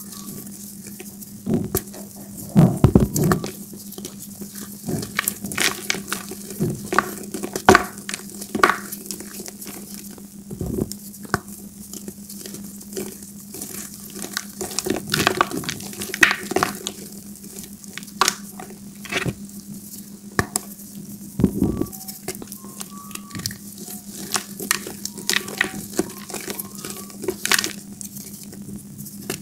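Gym chalk balls crunching and crumbling as fingers squeeze them into powder, with irregular crisp cracks and softer powdery rustling in between. A steady low hum runs underneath.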